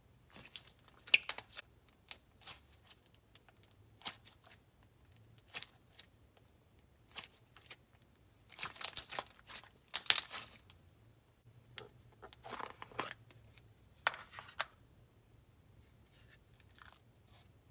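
Clear blue glitter slime being played with by hand, giving off irregular short crackles and pops, loudest twice near the middle.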